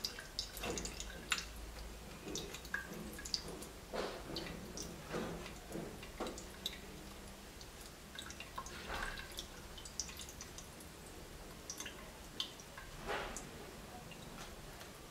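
A spoon pressing and scraping blended cucumber pulp in a fine metal mesh strainer gives irregular soft scrapes and ticks. Cucumber juice drips through into a plastic cup below.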